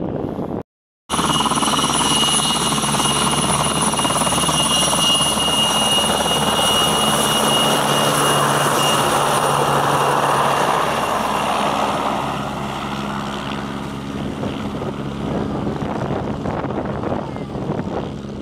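PZL W-3 Sokół helicopter running on the ground with its rotor turning: a loud, steady turboshaft whine with rotor noise underneath. It starts suddenly about a second in and eases off a little after about twelve seconds as the helicopter moves away.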